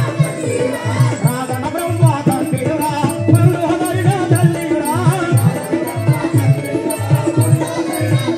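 Live folk music accompanying a stage entrance: a drum keeps a steady beat under a wavering melodic line, with a high jingling percussion ticking along in time.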